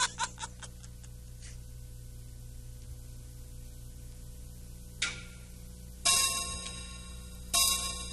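The tail of laughter dies away over a steady low hum, then a soft knock about five seconds in. Two ringing bell-like chime strikes follow about a second and a half apart, each sounding several tones at once and decaying slowly.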